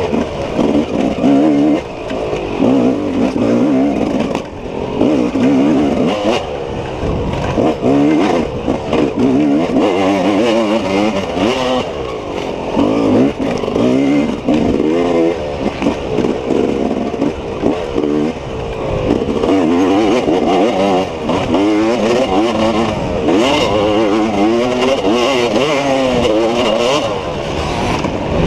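Dirt bike engine revving hard and easing off again and again as the rider works the throttle, its pitch repeatedly climbing and dropping.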